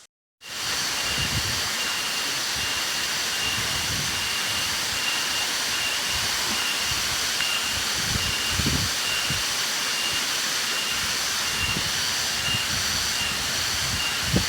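Waterfall: a steady rush of falling water that cuts in about half a second in, with a faint high pulsing tone on top.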